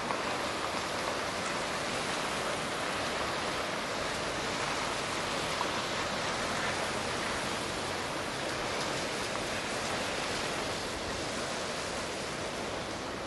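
Steady rushing noise of a distant freight train of tank wagons rolling slowly past, easing off a little near the end.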